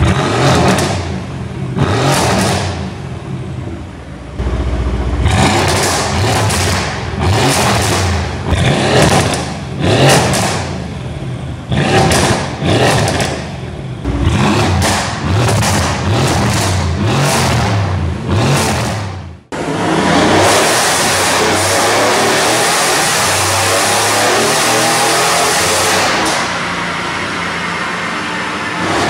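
Mercedes-AMG C63 S twin-turbo V8 with its catalytic converters removed and a Remus exhaust, revved in a string of about a dozen sharp blips. After a sudden break about two-thirds of the way in, a long, steady, loud run follows.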